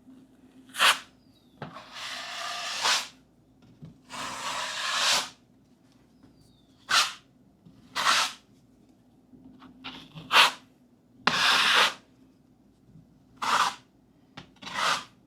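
A 12-inch drywall knife swiping joint compound across a sheetrock patch: about ten separate scraping strokes, some quick and some drawn out for a second or so, with short pauses between them.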